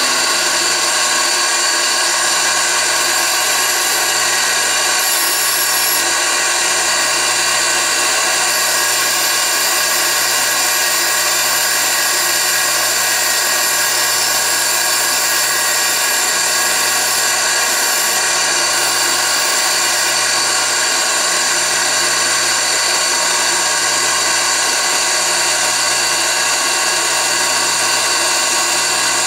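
Lisle drill grinder's electric motor and grinding wheel running at speed, a steady whine that holds unchanged.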